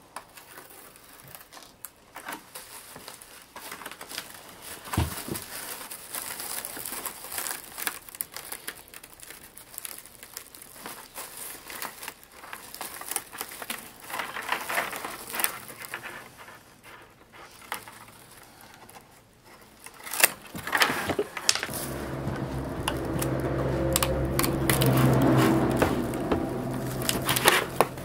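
Dry bamboo strips rustling, crinkling and clicking as they are trimmed with a knife and woven by hand into a twill-woven winnowing basket. Near the end a louder, steadier rubbing of strips sliding through the weave sets in, with a low hum under it.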